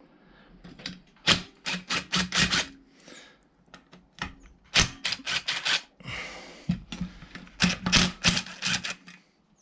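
Socket ratchet on an extension clicking in several quick runs with short pauses, as the engine's mounting bolts are cracked loose.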